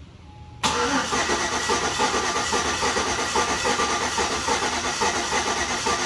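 A GMC 5.3-litre V8 is cranked over on its starter for a compression test of cylinder 7, starting about half a second in and going on steadily with an even pulsing. Cylinder 7 is the misfiring cylinder and reads as a dead cylinder.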